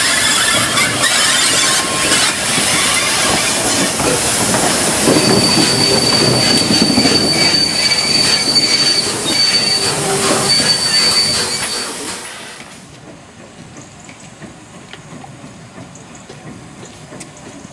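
LMS Princess Coronation Class 4-6-2 steam locomotive Duchess of Sutherland running slowly in close by, with clanking from its motion and a steady high-pitched squeal from its wheels for several seconds in the middle. About twelve seconds in the sound drops suddenly to a faint distant steam train.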